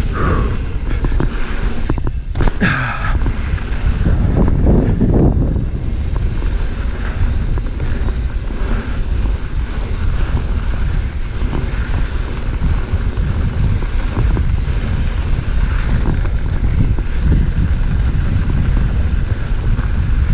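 Wind buffeting the camera microphone, mixed with the rumble and rattle of a mountain bike riding fast down a dirt trail. A couple of brief higher sounds stand out in the first three seconds.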